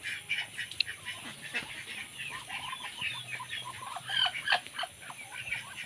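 A pen of ducklings peeping: many short, high-pitched chirps overlapping without pause, with a few lower calls mixed in about two and four seconds in.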